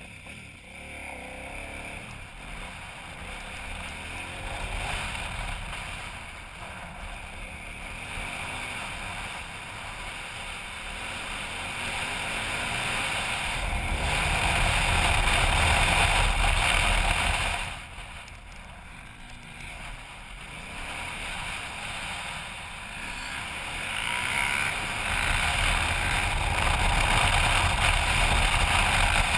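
KTM 990 Adventure's V-twin engine running under way, mixed with heavy wind buffeting the microphone. It grows louder as the bike accelerates, drops suddenly a little past halfway as the throttle closes, then builds again near the end.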